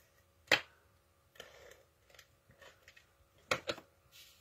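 Stampin' Seal tape runner and card stock being handled on a craft desk: one sharp click about half a second in, soft paper rustling, then two quick clicks near the end.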